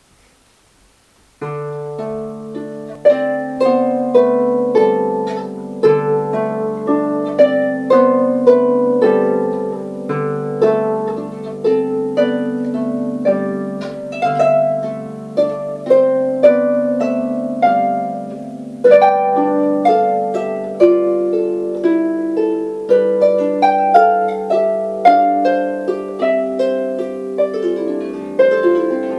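Lever harp by Harps of the South played solo: plucked melody notes over ringing bass notes, beginning about a second and a half in.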